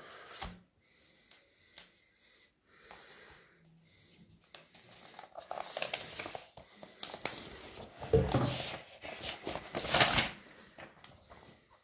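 Handling noise from a vinyl record's inner sleeve: rustling and sliding as a picture-disc LP is drawn out of it. The rustling is light at first and grows louder in the second half, with the strongest scrapes about two thirds of the way in and near the end.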